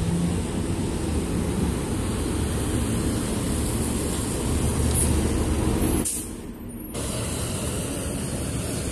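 City transit bus pulling in to the stop on a wet road: steady low engine rumble and tyre spray, with a short air-brake hiss about five seconds in.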